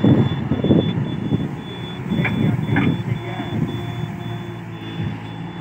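Hyundai 1400W-7 wheeled excavator working: its engine runs under load while a warning alarm beeps rapidly and regularly at a high pitch. There is a loud rush and clatter in the first second as soil pours from the bucket, then a couple of sharp clanks from the bucket and boom.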